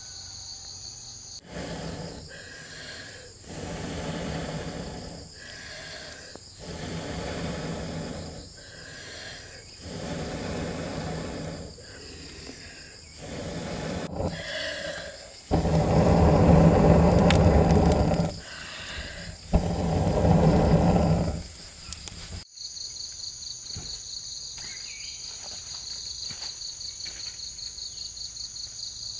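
Someone blowing on a small wood fire to get it going, in repeated breaths of one to two seconds with short pauses between, the last two the longest and loudest. About 22 seconds in it gives way to steady insect chirring.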